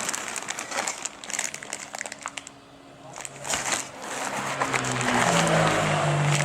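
Suzuki GSR600 inline-four engine running with an irregular metallic clattering, then a steadier hum that grows louder from about halfway. The clatter is the sign of a worn timing chain slapping against its guides, from a weak cam chain tensioner.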